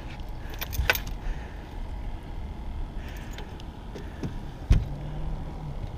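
Landing net holding a flathead catfish being brought over the gunwale and set down on a carpeted boat deck: light knocks about a second in and one heavier thump near the end, followed by a brief low hum, over a steady low rumble.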